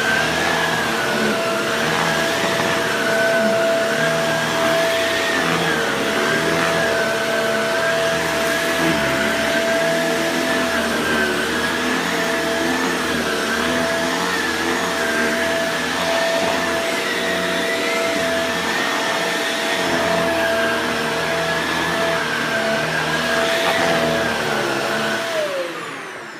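Shark Rotator True Pet Lift-Away upright vacuum running over a rug, a steady motor whine over loud rushing air. Near the end it is switched off and the whine falls away as the motor spins down.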